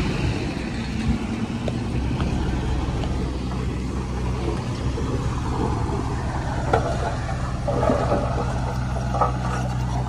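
Komatsu D39PX bulldozer's diesel engine running steadily, with scattered clanks and knocks in the second half.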